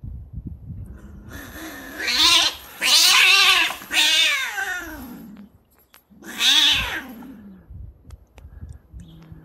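Two black-and-white domestic cats fighting and caterwauling: a run of loud, wavering yowls and screeches from about a second and a half in, then one more loud yowl a little after six seconds in.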